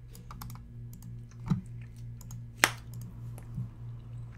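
Computer keyboard and mouse clicks: a scattered run of light clicks, with a heavier knock about a second and a half in and a sharper click near the middle, over a steady low hum.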